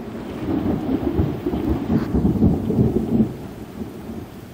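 Thunder rolling and rumbling: it builds about half a second in, is loudest around two to three seconds, then fades away.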